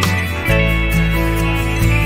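Background music: plucked guitar notes over a steady beat.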